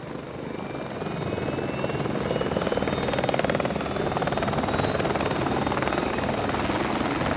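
Helicopter running close by: rotor blades beating with a turbine whine, growing louder over the first two seconds and then holding steady. A faint whine slowly rises in pitch.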